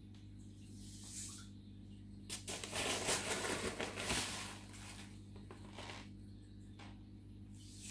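A burst of air bubbles rushing up through aquarium water for about two seconds, starting about two and a half seconds in, over a steady low hum.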